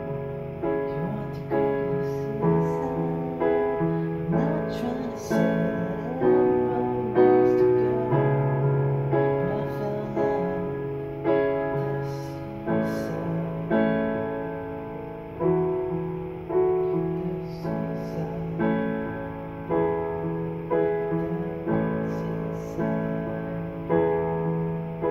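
Digital piano played slowly and gently, chords and a melody with a new note or chord struck about every second and left to ring.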